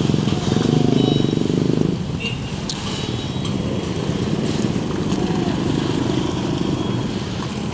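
Small motorcycle engine running steadily with street traffic, louder for about the first two seconds.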